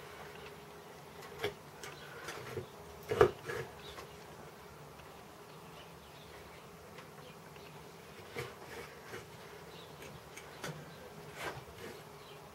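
Chip-carving knife working in wood: scattered small clicks and snicks, with one sharper knock about three seconds in, over a steady faint hum.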